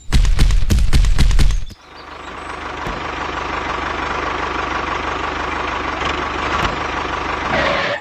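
Tractor engine: a loud, rapid chugging for about the first second and a half, then a steady running sound with a hissing rush as the tractor moves off.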